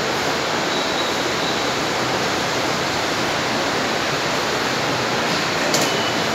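A steady, even rushing noise, with one sharp click near the end as a hand presses the digital chess clock's button.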